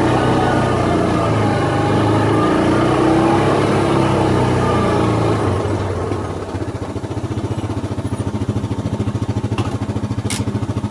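2013 Yamaha Viking side-by-side's single-cylinder engine running as the vehicle is driven, its pitch shifting under load. About six seconds in it eases off to a quieter, evenly pulsing note.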